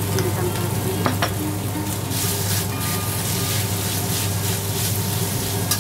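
Raw minced chicken sizzling in a hot wok as a metal spatula stirs and scrapes it through dried scallop and preserved mustard greens. There are a few sharp clicks of the spatula on the pan, about a second in and again near the end, over a steady low hum.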